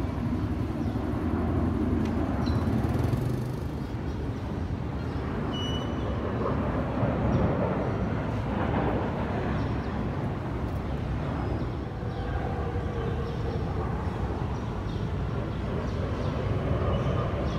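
Steady low rumble of a formation of military fighter jets flying over at a distance, loudest in the first few seconds.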